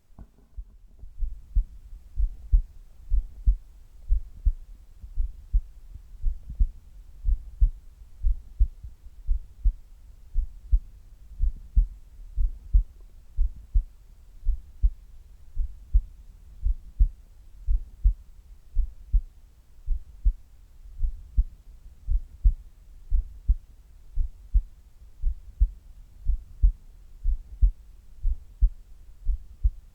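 A human heartbeat at rest, recorded close up: steady, regular low thumps.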